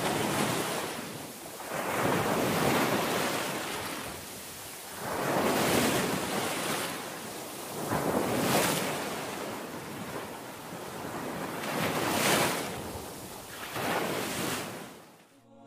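Ocean surf: waves swelling and falling back about every three seconds, six times over, fading out just before the end.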